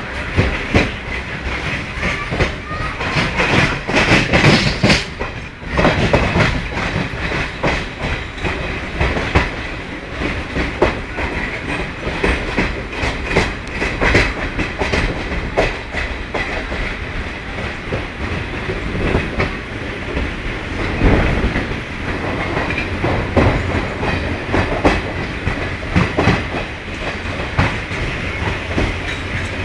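Train wheels clacking over rail joints and points with a steady rumble, heard from inside a moving coach of the 17031 Mumbai–Hyderabad Express. The clacks come irregularly and are densest a few seconds in.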